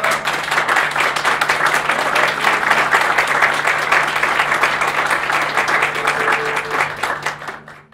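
Small audience applauding: steady, dense hand-clapping that dies away and cuts off just before the end.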